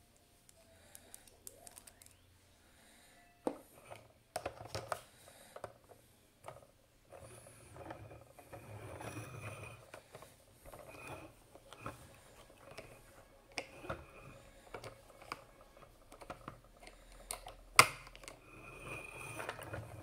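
Hard plastic toy fire truck and figures being handled: scattered clicks, taps and light scraping as figures are fitted onto the truck and its ladder basket, with one sharp click near the end.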